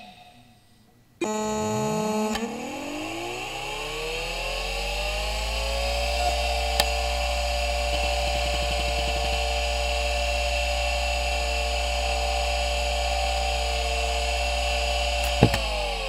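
Conner CP-3104 100 MB, 3,600 RPM IDE hard drive powering up. A brief buzzing tone comes first. Then the spindle motor spins up in a rising whine over about four seconds and runs at speed with a steady whine over a low hum, with a couple of head clicks about six seconds in. Near the end a click comes and the whine begins to fall as the drive is switched off and spins down.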